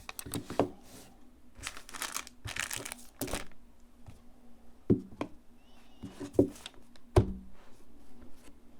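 Packaging being handled: crinkling and rustling for a couple of seconds, then several sharp knocks as the pieces are set down.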